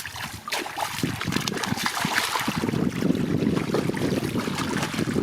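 Water splashing and sloshing in a muddy fishing hole, with wind on the microphone.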